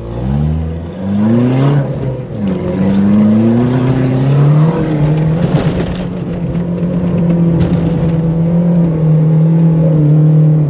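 4x4's engine revving hard while climbing a sand dune: the pitch rises twice in the first two seconds as it accelerates, then holds at high, steady revs under full load.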